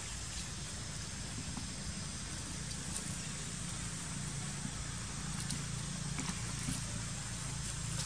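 Steady background rumble and hiss, with a few faint ticks here and there.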